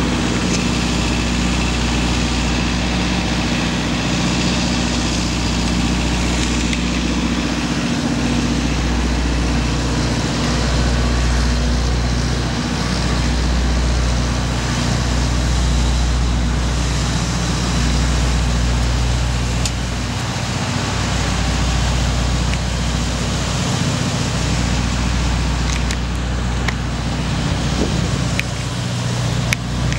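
Idling buses and generators running together as one unbroken low engine drone with a steady hum.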